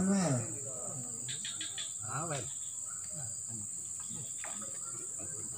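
Steady high-pitched drone of insects, an unbroken shrill hum, with short snatches of men's voices near the start and about two seconds in.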